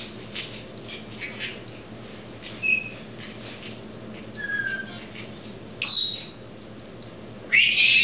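Senegal parrot making short chirps and whistles, then two loud harsh squawks, about six seconds in and again near the end.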